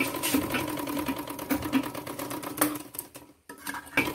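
Overlock machine running at speed, stitching and locking the side seam of the fabric with a fast, even rhythm of strokes. It stops briefly about three seconds in and starts again near the end.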